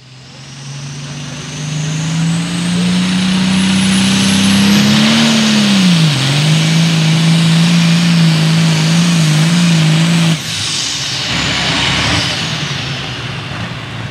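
Limited pro stock pulling tractor's turbocharged diesel engine running flat out under load, with a high whine rising over the first few seconds. Its pitch sags and recovers about six seconds in. About ten seconds in the engine suddenly lets off, as at the end of a pull, leaving a fading hiss.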